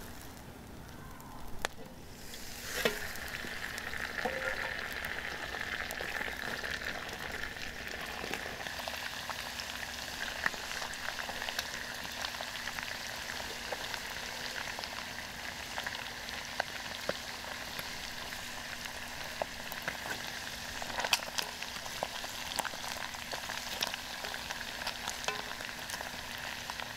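Chicken pieces frying in hot fat in a cast iron pot: a steady sizzle dotted with sharp pops and crackles, which grows louder after a knock about three seconds in.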